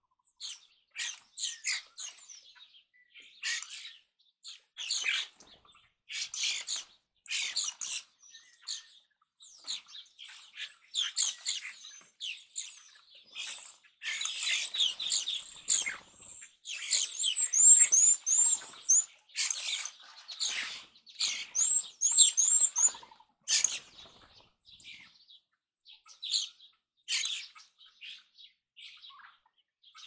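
A flock of European starlings and other feeder birds chirping and calling in short, overlapping bursts, with two quick runs of high whistled notes a little past the middle. Wings flutter as birds come and go.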